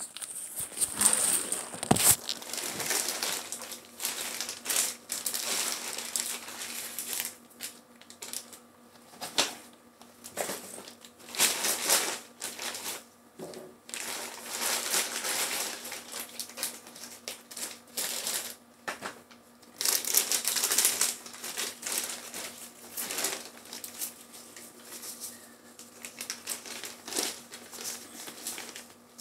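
Clear plastic packaging crinkling and rustling in gloved hands, in irregular bursts, as dressing supplies are unwrapped. A single knock about two seconds in.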